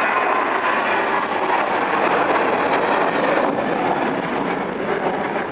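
Boeing 737 jet airliner's twin turbofan engines at takeoff thrust as it climbs away just after lift-off: a steady broad rush of jet noise that eases slightly near the end.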